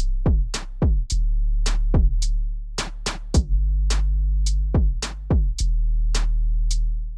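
Instrumental drum-machine beat: sharp, crisp percussion hits over a deep, sustained bass, with kick hits that drop quickly in pitch.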